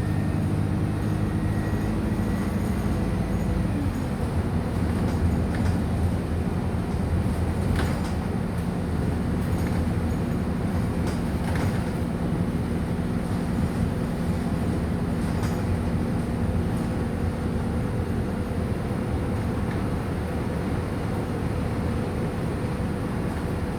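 Wright StreetLite DF single-deck bus under way, heard from inside: its diesel engine and driveline run steadily. The engine note drops in pitch about four seconds in, and there are a few light rattles.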